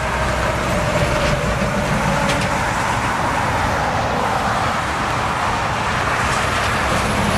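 Heavy diesel traffic passing close on a highway: a semi-truck hauling a tarped double trailer goes by with engine and tyre noise, then a coach bus approaches. The sound stays steady and loud, with a slight downward slide in pitch early on as the truck passes.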